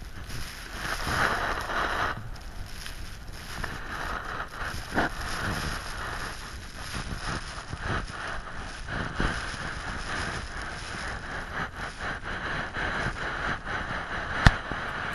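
Wind gusting across the microphone, an uneven rushing noise that swells and drops, with blown sand hissing over the dune surface. A single sharp click near the end.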